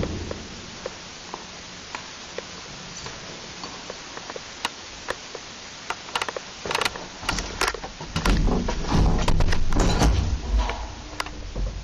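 Old lift without inner doors in operation: scattered light clicks, then denser clatter and, about two-thirds of the way in, a few seconds of louder low rumbling before it eases off.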